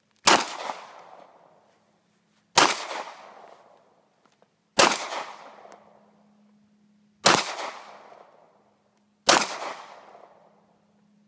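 Five single shots from a semi-automatic pistol, fired one at a time about two seconds apart. Each sharp crack trails off over a second or so.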